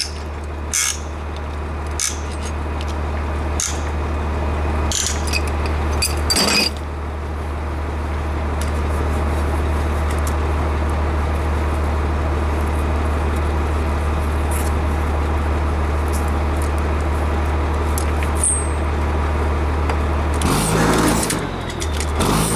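A steady low machine hum, with scattered clicks and knocks in the first seven seconds; the hum shifts briefly near the end.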